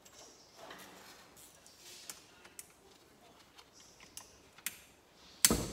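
Faint, scattered metallic clicks of a hand wrench being worked on the cylinder bolt of a Kawasaki Bayou 300 engine. Near the end comes a loud, rapid clatter of ratcheting and tool handling.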